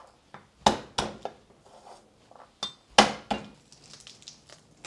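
Sharp knocks of a kitchen knife against a wooden cutting board as garlic cloves are peeled: three quick knocks about a second in, then two more about three seconds in.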